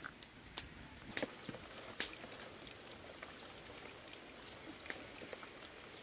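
A few sharp taps and clicks, the loudest about a second and two seconds in, followed by fainter scattered ticks over low background noise.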